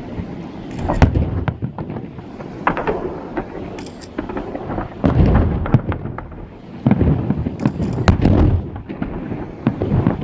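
Fireworks salute: a series of booms and sharp cracks from shells bursting, coming every second or two, with a low rumble between them.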